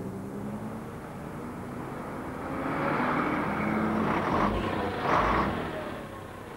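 Car engines running in slow traffic, a steady low hum, with a louder rush of exhaust in the middle that carries two low thumps before settling back.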